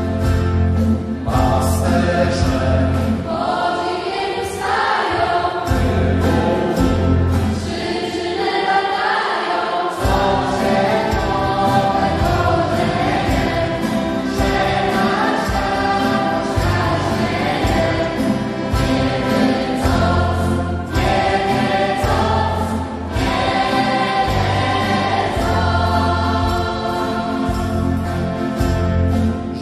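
Live choir and band performing a Polish Christmas carol: many voices singing together over guitars, bass and a steady beat. The bass and beat drop away for a few seconds and come back in sharply about a third of the way through.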